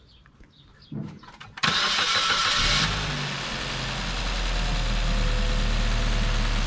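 Suzuki Swift's K14B 1.4-litre four-cylinder petrol engine started on freshly fitted spark plugs: it cranks and catches about a second and a half in, flares briefly, then settles into a steady idle.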